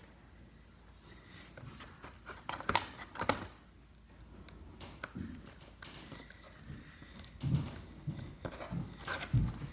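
Handling noises: two sharp clicks about three seconds in, then a run of soft, irregular low thumps from about seven and a half seconds.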